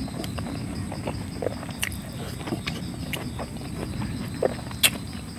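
Close-miked chewing and lip-smacking while eating chicken by hand: irregular wet clicks and smacks, the loudest near the end. A steady high insect drone runs underneath.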